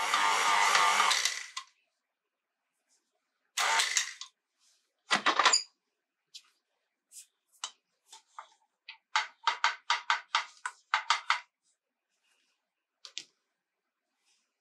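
KitchenAid Heavy Duty stand mixer running with its dough hook in a stainless steel bowl, cutting off about two seconds in. A few seconds later comes a plastic dough scraper scraping down the sides of the steel bowl, with a quick run of about a dozen short strokes.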